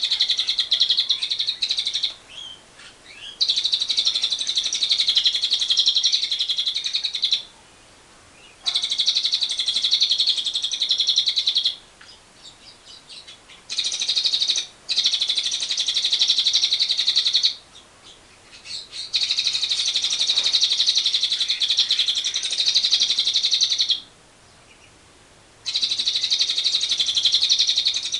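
A lovebird's long 'ngekek': a very fast, rattling chatter-trill given in loud bouts of about two to five seconds, seven times over, with brief pauses between them holding a few faint chirps.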